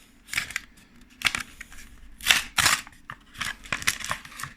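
Foil Yu-Gi-Oh booster pack being torn open and its trading cards handled: a series of short, scratchy tearing and sliding sounds, loudest a little past two seconds in.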